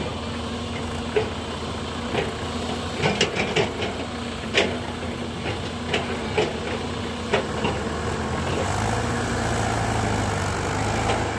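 Hyundai Robex 210-7 excavator's diesel engine running steadily, with a string of sharp knocks in the first part. About nine seconds in, a deeper, louder engine note comes in.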